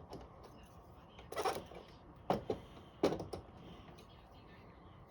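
Small hard plastic model-kit parts being handled: three sharp clicks with a short clatter after each, plus a few fainter ticks.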